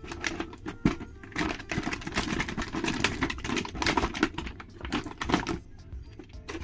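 Rapid, irregular clicking and crackling of plastic being handled, thickest through the middle, with a few sharper clicks near the start and the end.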